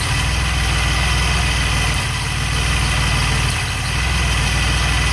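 DeLorean DMC-12's PRV V6 engine idling steadily, with a strange ticking that the owner traces to the distributor.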